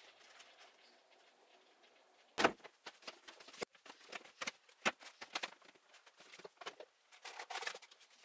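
A sharp knock about two and a half seconds in, then a run of irregular light taps and clicks.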